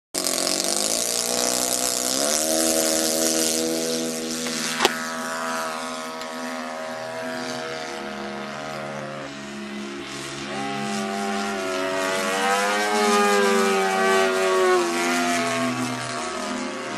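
Engine and propeller of a radio-controlled Showtime 4D aerobatic model plane running, opening up about two seconds in for the takeoff, then rising and falling in pitch as the throttle changes in flight. A single sharp click about five seconds in.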